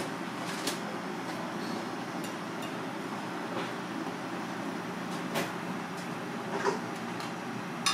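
Steady kitchen background hum with a few light clicks and taps as a knife and a ceramic plate are handled on a plastic cutting board during sashimi slicing; a sharper knock comes right at the end.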